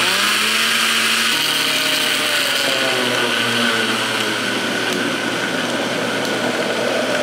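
Electric blender running at speed, chopping a jar packed with watermelon pulp down into juice. The motor's pitch sags a little in the first second or so as it takes the load, then holds steady.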